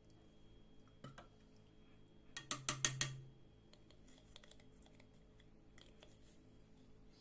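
A quick run of about six sharp clicks, with a fainter click about a second earlier.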